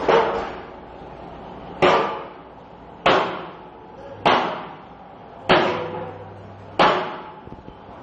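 Six heavy blows struck on metal, about one every 1.2 seconds, each ringing out briefly.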